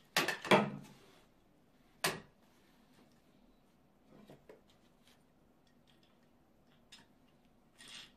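Wooden jibata (Japanese ground loom) worked by hand: a quick cluster of wooden knocks as the weft is beaten in, then one more sharp knock about two seconds in. Afterwards only soft taps and rustles as the weft is passed through the warp.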